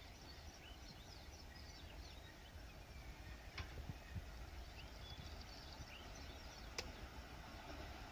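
Birds chirping over a faint low rumble from an approaching electric-hauled express train, the rumble slowly growing louder, with a few sharp clicks.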